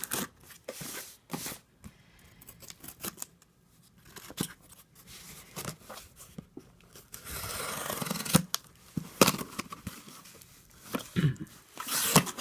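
A cardboard shipping package being cut and torn open: scattered clicks and short tearing scrapes, then a longer rip about seven seconds in, with crackling near the end.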